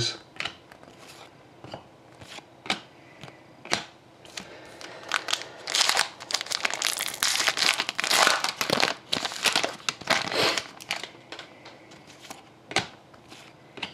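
Foil wrapper of an Upper Deck SP Authentic hockey card pack crinkling as it is opened and handled, through the middle stretch. Scattered sharp clicks come from cards being handled before and after.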